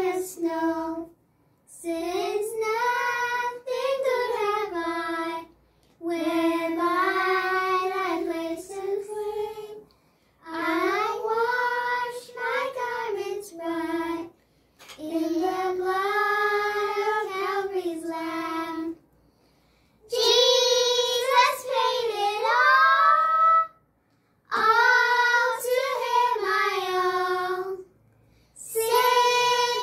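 Young girls singing a song unaccompanied, in sung phrases of a few seconds each, broken by short silent breaths between them.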